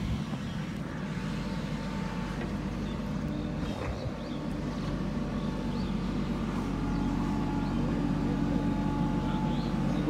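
JCB backhoe loader's diesel engine running steadily as it works, a constant low mechanical hum with a brief dip about four seconds in.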